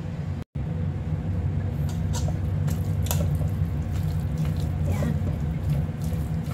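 Soba noodles, shredded chicken and peanut sauce being tossed by hand and with a silicone spatula in a stainless steel bowl: wet squishing with short scraping clicks from about two seconds in, over a steady low hum.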